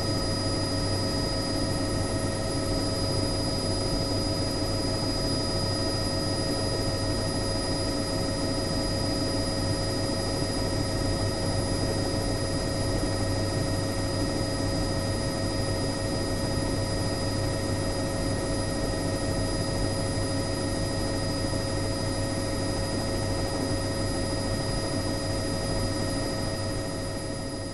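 Helicopter in flight: a steady mix of engine and rotor noise with several constant whining tones, fading down near the end.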